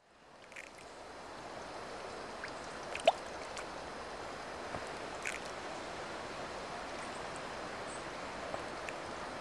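Trout splashing at the pond surface as they rise to take feed: a few short, separate splashes over a steady outdoor hiss, the sharpest about three seconds in. The sound fades in from silence at the start.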